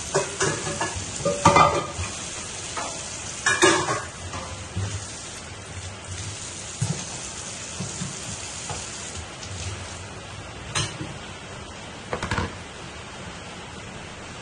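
A pan of crab and shrimp broth bubbling at a steady boil, with a few scattered knocks and scrapes of a utensil against the pan as the pot is stirred.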